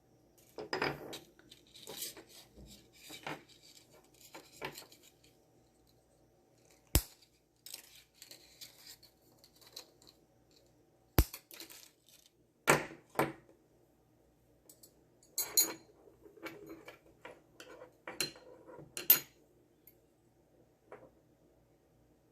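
Hard jewelry wire and small hand tools being handled on a work surface: scattered light clicks and metallic clinks, with two sharp single snaps a few seconds apart.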